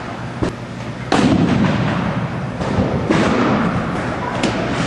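Baseball popping into a catcher's mitt with a sharp single crack near the end, just after the pitcher's release. Earlier, a loud rush of background noise starts about a second in and holds for a couple of seconds.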